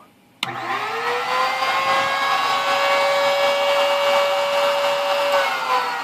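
Router spindle motor on a homemade CNC machine, switched on with a click and spinning up to a steady high-pitched whine. Near the end it is switched off and winds down with falling pitch.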